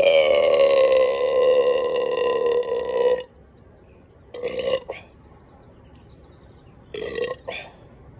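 A man belching after chugging several beers in quick succession: one long, loud burp of about three seconds, then two short burps a few seconds apart.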